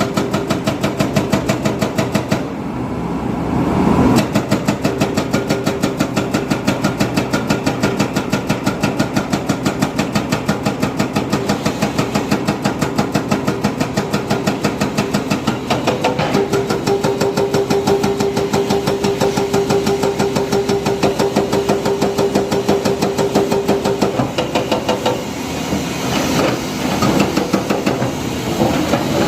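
Diesel engine of heavy construction machinery running with a rapid, even knocking beat. A steady whine joins in for several seconds midway.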